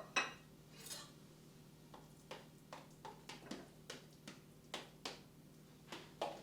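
Fork clinking against a dish: a couple of ringing clinks near the start, then a string of light, irregular taps.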